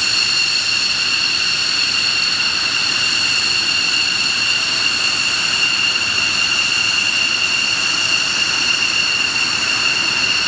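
Aircraft turbine engines running with a steady high-pitched whine over a rushing hiss, the pitch holding level throughout.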